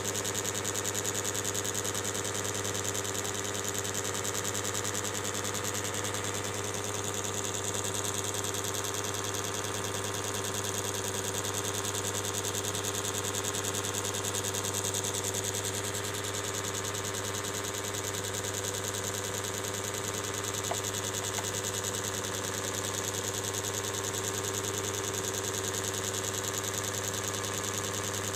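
A steady, unbroken machine hum with a low drone, like a small electric motor running.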